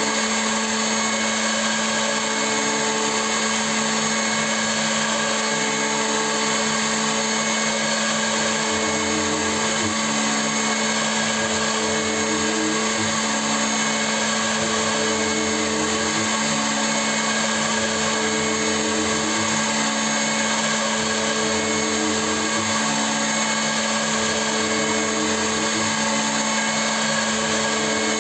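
CNC milling machine running: a steady motor hum with short pitched tones from the axis drives that change every second or two as the machine moves.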